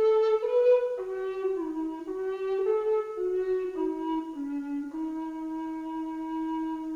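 A solo wind instrument plays a short, slow melody, one note at a time. The line steps mostly downward and ends on a long held note.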